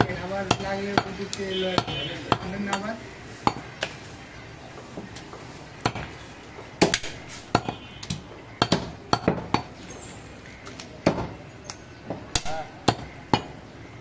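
Heavy butcher's cleaver chopping goat meat on a wooden log chopping block: about two dozen sharp chops at an uneven pace, with a voice in the background during the first few seconds.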